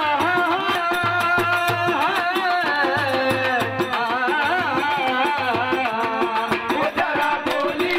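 Live folk music: a man singing into a microphone over a steady hand-drum beat, with hand-clapping.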